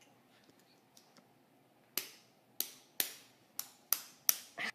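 Bump hammer tapping a bump key seated in a Master padlock: about seven sharp taps starting around two seconds in, roughly half a second apart and a little quicker toward the end.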